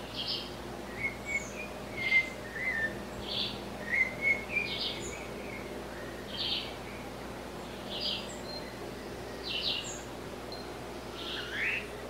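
Blue-bellied parrot (sabiá-cica) calling: short high notes repeated about once a second, with lower twittering notes between them for a few seconds in the first half and a rising note near the end.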